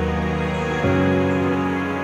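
Background music: a slow song with sustained chords, changing chord about a second in, with no singing at this point.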